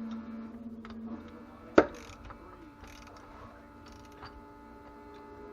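Hand tools and bolts on metal while bolting a driveshaft adapter to a differential flange: one sharp metallic clank about two seconds in and a few small clicks, over a steady mechanical hum.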